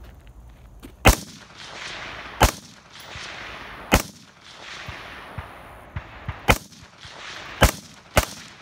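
AR-style rifle fired six single shots, spaced one to two and a half seconds apart with the last two close together. Each shot is a sharp crack followed by a long fading echo. A few fainter sharp sounds fall between the fourth and fifth shots.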